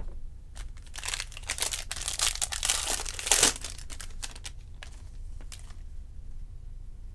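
Crinkly wrapper of a 2020 Topps Series 2 jumbo baseball card pack being torn open, crackling from about a second in and loudest about three and a half seconds in. A few light rustles follow as the cards are slid out.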